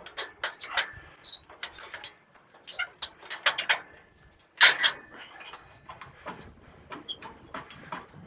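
Irregular clanks and knocks of trailer and winch hardware being handled, in uneven clusters with the loudest knock about four and a half seconds in.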